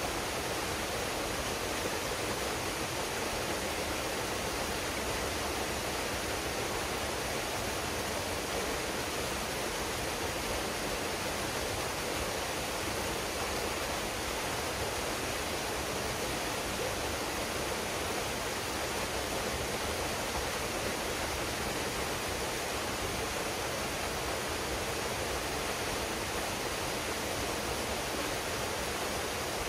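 Waterfall pouring steadily into a pool: a constant rushing of water with no breaks.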